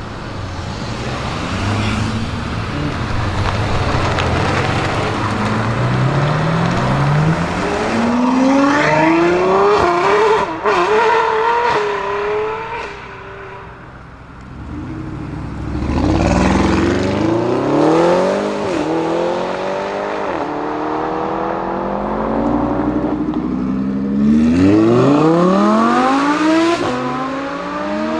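Tuned Audi RS Q8's twin-turbo V8 accelerating at full throttle, its pitch climbing and dropping back at each upshift. It makes three hard pulls, about a third of the way in, just past halfway, and near the end, with a lull between the first two.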